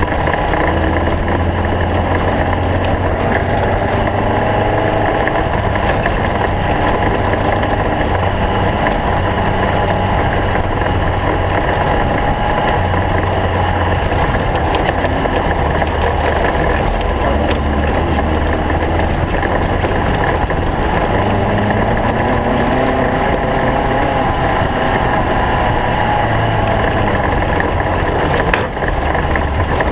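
Air-cooled VW flat-four engine of a stock Beetle off-road race car running hard at a steady pace, with a constant wash of road and wind noise.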